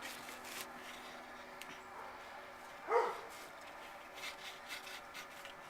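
A dog gives a single short whine about three seconds in, over a quiet room with a faint steady hum.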